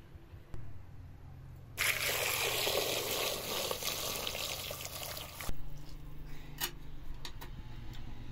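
Liquid pouring for about four seconds, starting and stopping abruptly, followed by a few sharp clicks.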